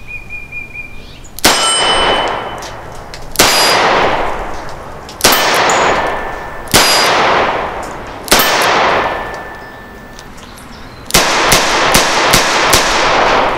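Taurus Defender 605 small-frame revolver firing .38 Special +P 158-grain hard-cast loads: five single shots about one and a half to two seconds apart, each followed by a long ringing echo, then a fast string of about five shots near the end.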